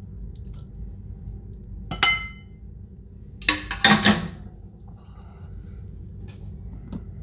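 Metal tongs clinking on cookware while spaghetti is served from a stainless-steel skillet into a ceramic bowl: one sharp clink with a brief ring about two seconds in, then a louder clatter and scrape of the tongs in the skillet around four seconds, over a steady low hum.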